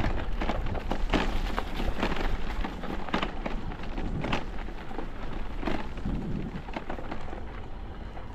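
Footsteps crunching through dry leaves and twigs, irregular crackles every half second or so, over a low wind rumble on the microphone.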